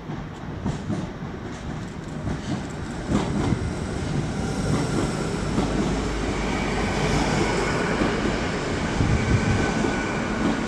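Hitachi Class 800 Azuma train running in along the platform, its rumble growing louder, with clicks from the wheels in the first few seconds and a steady high whine coming in about halfway.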